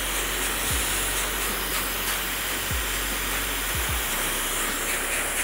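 Hand-held hair dryer running steadily on high speed, its airflow a steady hiss, with a few brief low thumps.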